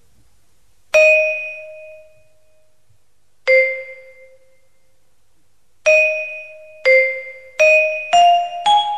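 Custom-built piano with its keys struck by bouncing juggling balls: seven clear ringing notes, each dying away. The first three are well spaced, then they come quickly, and the last three climb in pitch.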